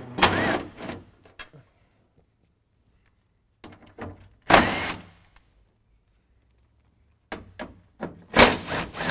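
Cordless drill with a 10 mm socket spinning out bolts in three short bursts, about a second each: near the start, about halfway and near the end. In each burst the motor's pitch rises and falls.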